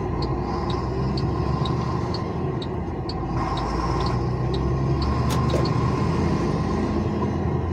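Diesel truck engine running and tyre noise on wet asphalt, heard from inside the cab as the truck drives along: a steady low rumble, with a faint regular ticking at about two ticks a second.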